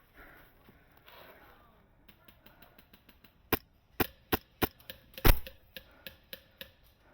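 Pneumatic sport guns firing in a skirmish. A patter of faint rapid clicks gives way to a string of sharp shots about every half second, the loudest around five seconds in, then a few lighter shots.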